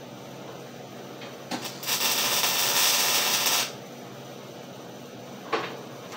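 A short weld on a steel panel: the welding arc gives one loud, dense hiss about two seconds long, starting and stopping abruptly. A sharp knock near the end.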